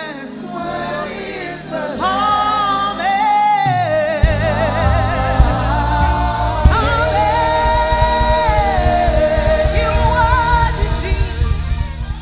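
Live gospel worship music: singers hold long, wavering notes over a band. Bass and drums come in about two seconds in and grow fuller a couple of seconds later.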